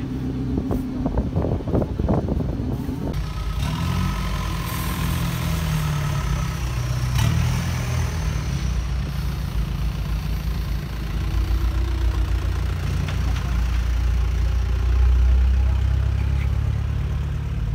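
Engine and exhaust of a lowered MPV running as it rolls slowly past at low speed, its low rumble growing louder about fifteen seconds in as it comes close.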